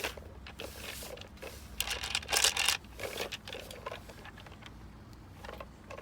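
Plastic shape-sorter toy and its pieces being handled: scattered clicks and rattling, with a denser cluster about two to three seconds in.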